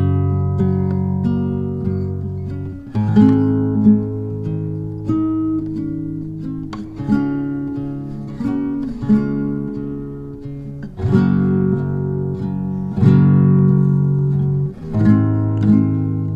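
Background music of a plucked and strummed acoustic guitar, with chords struck about every second or two and left ringing.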